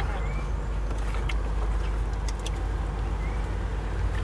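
Steady low motor rumble, such as a nearby engine, with a few faint clicks and two short rising chirps.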